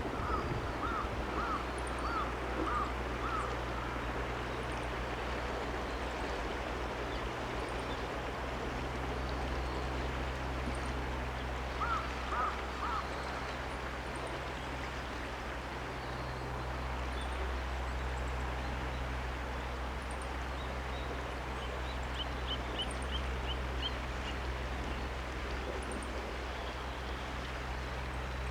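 Steady rush of flowing water over a low steady hum, with a bird calling in short repeated notes: a run of about seven at the start, three more about twelve seconds in, and a quick run of higher notes about twenty-two seconds in.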